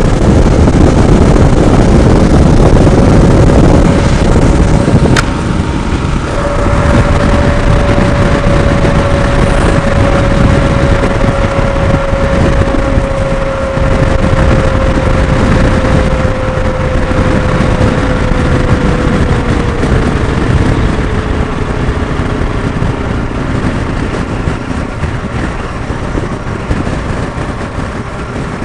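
Motorcycle riding at road speed, heard from the rider's helmet: a constant rush of wind over a steady engine tone that slowly sags in pitch. A single sharp click about five seconds in.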